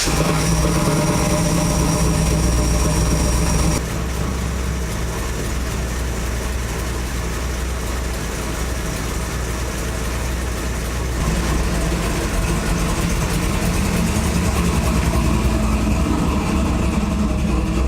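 Car engine running steadily just after being started, its pitch and level easing off slightly about four seconds in and picking up again near eleven seconds.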